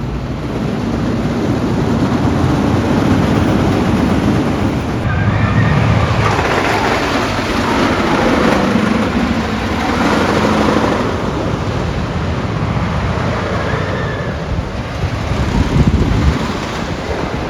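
Loud wind rushing over the microphone, with the rumble of a wooden roller coaster train running on its track. The level swells and falls with the ride, peaking briefly near the end.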